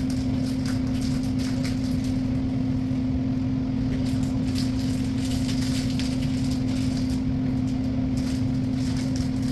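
Steady mechanical hum with one constant low tone and a low rumble, like an indoor appliance or air-conditioning unit running, with scattered light clicks and taps of cabinet parts and fittings being handled during assembly.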